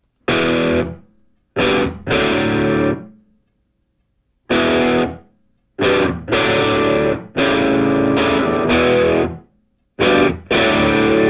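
Background music: distorted electric guitar chords struck one at a time and left to ring out, about ten of them, with short silences between.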